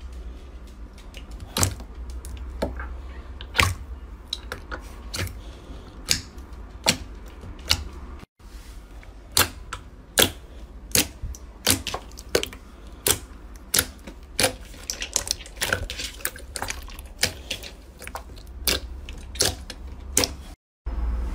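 Slime being squeezed and poked, giving sharp clicking pops of trapped air, about two a second, over a low steady hum.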